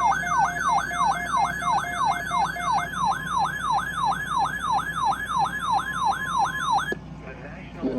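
Electronic weather-radio alert siren, a warbling tone sweeping up and down about two and a half times a second, cutting off abruptly about seven seconds in, marking an incoming severe weather alert.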